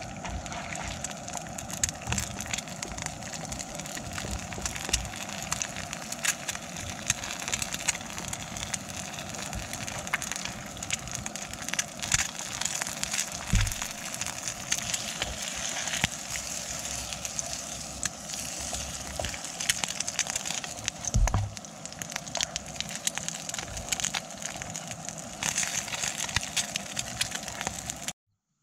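Eggs frying in oil in a nonstick pan, sizzling and crackling steadily, with the spatula scraping in the pan and a couple of low knocks against it. The sizzle cuts off suddenly near the end.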